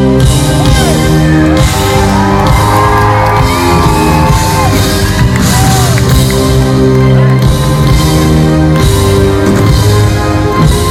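Loud live band music in a large hall, with a heavy bass and sustained chords, and audience screams and whoops gliding over it.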